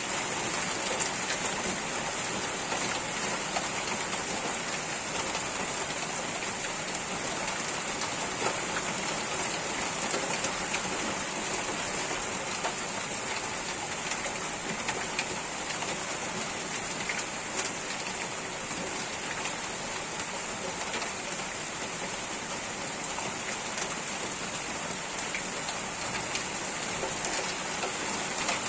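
Steady rain falling on surfaces, with scattered individual drops ticking and a steady high hiss over it.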